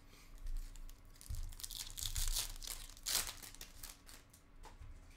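A Bowman University Chrome card pack's wrapper being torn open and crumpled by hand: a run of crackling, crinkling rustles, loudest about three seconds in.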